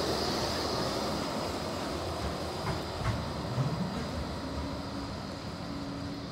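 Modern articulated street tram running away along street track, its rolling noise and a high steady whine fading as it moves off.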